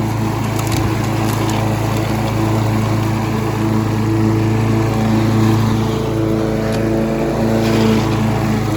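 Gas lawn mower engine running steadily at a constant speed, a loud, even hum.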